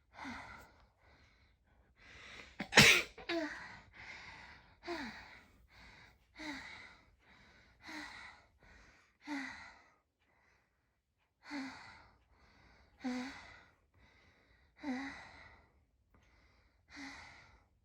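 A person sneezes once, sharply and loudly, about three seconds in: a dust-allergy sneeze. Before and after it they moan breathily over and over, about every one and a half seconds, each moan falling in pitch, with a short pause near the middle.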